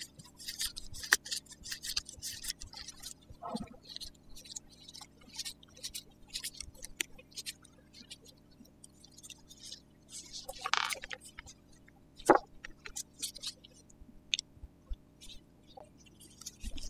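Light metallic ticks, scrapes and clicks of a 4 mm Allen key turning and seating the banjo hose bolt on a hydraulic disc brake caliper, with gloved hands handling the parts. The clicks come irregularly, a few louder ones about two-thirds of the way through.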